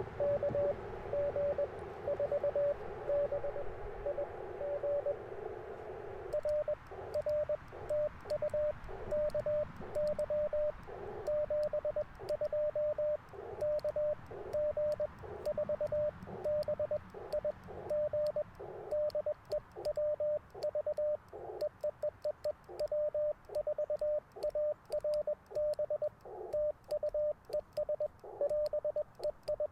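Morse code beeps from an Icom IC-705. For about six seconds a station's signal comes in through the narrow CW filter over band hiss. Then the hiss drops out and the operator's own sending follows as a clean sidetone of the same pitch, with the light clicks of the twin-paddle key under it.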